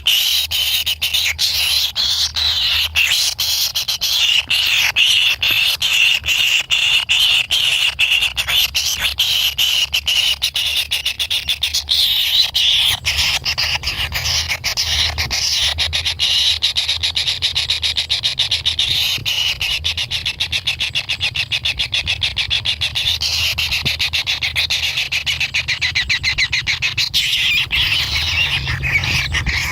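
Kingfisher chicks begging in the nest: a steady, high-pitched chorus of very rapid pulsing calls that never lets up, the sound of hungry nestlings clamouring for food.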